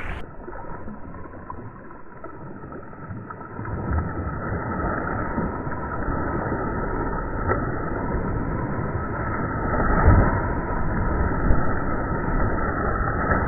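River water splashing and churning as a tiger lunges and swims through it beside a wading man. It sounds dull and muffled, with no high end, grows louder about three and a half seconds in and surges around ten seconds in.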